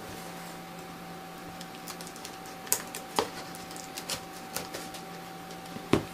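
Utility knife blade cutting and scraping along the packing tape on a cardboard box, with scattered clicks and scratches and a few sharper knocks, the loudest near the end. A faint steady hum runs underneath.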